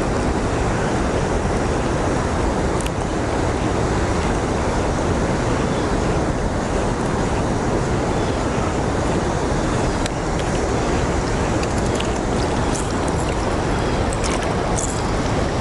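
Steady rushing of the river's current below a lock and dam, an even, unbroken noise with a few faint ticks in the second half.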